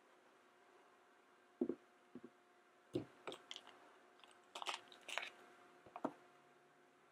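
Hard plastic toy pieces being handled: a plastic Minnie Mouse figure having its snap-on dress pulled off and the piece set down, giving a scattering of light clicks and taps, some in quick little clusters.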